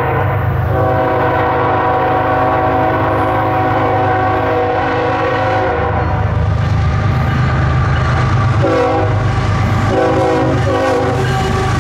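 The lead BNSF GE ES44AC locomotive's air horn sounding for a grade crossing: a long blast lasting about five seconds, a short one, then another long one. Beneath the horn is the low rumble of the diesel locomotives, growing as they approach and pass.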